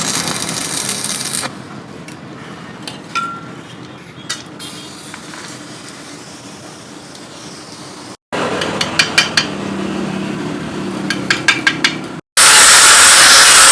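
Hammer blows on metal in forging work: two quick runs of four or five light, sharp taps, then near the end a loud, steady hissing rush cuts in abruptly.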